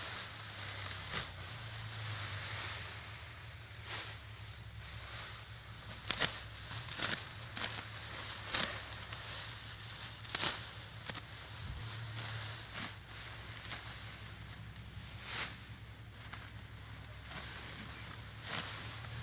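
Rice stalks being cut by hand with sickles: crisp rustling swishes and crunches at irregular intervals, over a steady high-pitched hiss.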